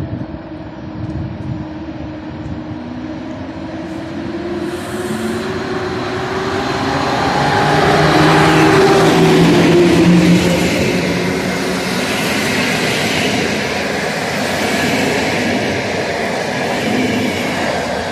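Passenger train hauled by an electric locomotive passing along the platform. The locomotive's hum grows louder as it approaches and dips in pitch as it goes by, about eight to ten seconds in, followed by the steady rushing rumble of the coaches rolling past on the rails.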